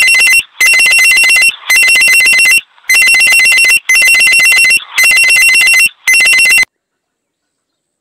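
Electronic trilling ring, like a telephone bell: a series of loud rings just under a second long, about one a second, cutting off abruptly a little before the end.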